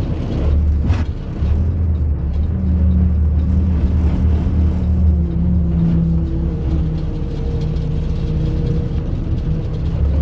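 Truck engine running steadily at driving speed, a low even hum, with one short click about a second in.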